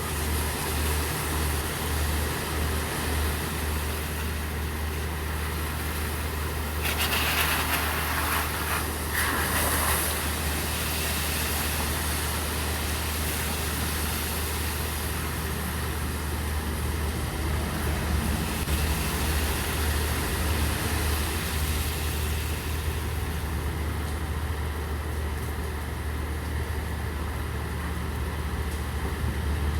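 Steady rain hiss over the low rumble of an idling vehicle engine. About seven seconds in, a louder rushing hiss lasts some three seconds as a car drives through water on the wet road.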